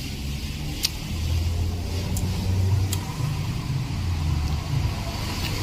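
Low steady rumble of a running road vehicle, with a few light sharp clicks about a second and three seconds in.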